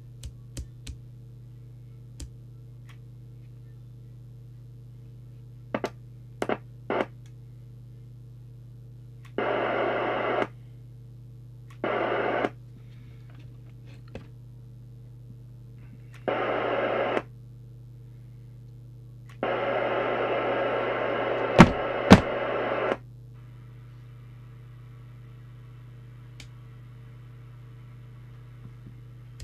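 CB radio speaker putting out four bursts of static hiss, the last and longest about three and a half seconds, over a steady low hum, with a few sharp clicks in between.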